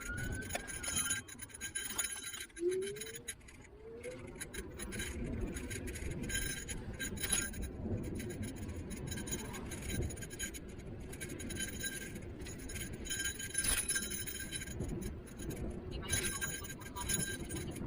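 Niu KQi3 Pro electric scooter riding: steady low wind and road rumble, with a high electric motor whine that cuts in and out in stretches as the throttle is worked.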